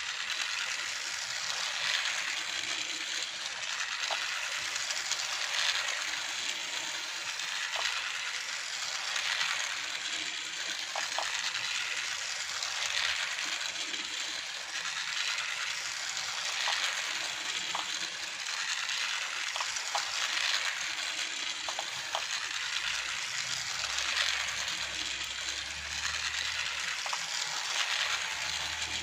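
Small electric motors and plastic gears of battery-powered toy vehicles running steadily, with an even swell about every two seconds and a few light ticks.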